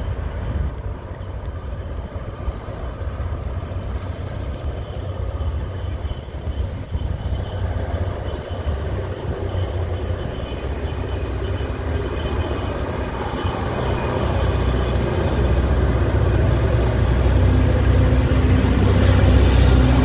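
Diesel freight locomotives hauling a cattle train approach, a low engine rumble that grows steadily louder over the last third as the train draws near.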